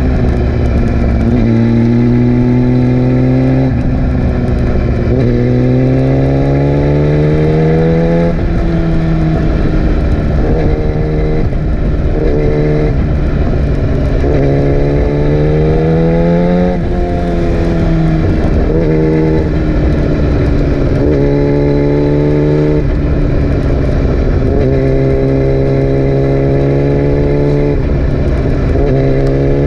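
Yamaha R6 sport bike's inline-four engine pulling hard, its pitch climbing in repeated sweeps and dropping back at each gear change, over a steady low engine drone.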